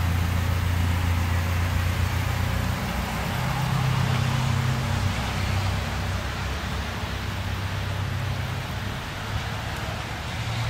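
Toyota Tacoma pickup's engine pulling away at low speed, a steady low hum that steps up in pitch about three seconds in and then eases off as the truck moves away.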